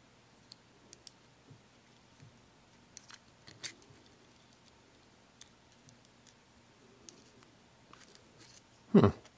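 Small metal clicks and ticks as a steel hydraulic relief-valve part is handled and prodded with a pick while a washer is tried in it. One heavier thump near the end is the loudest sound.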